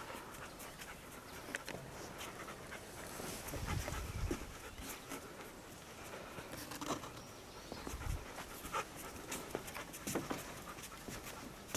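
A dog panting, with scattered light clicks and a couple of low thumps about four and eight seconds in.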